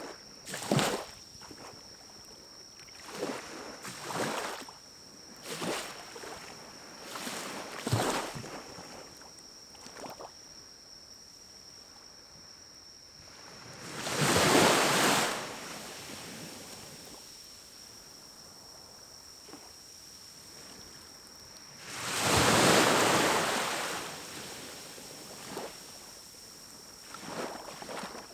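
Pine cones burning in a small wood-burning stove: the fire flares in a series of short rushing surges, then two louder whooshing surges of about two seconds each, one about halfway through and another later on. A faint steady high tone runs underneath.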